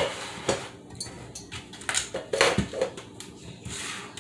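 Kitchen clatter: dishes and utensils knocking against each other and the counter in a string of sharp knocks, with a brief hiss near the end.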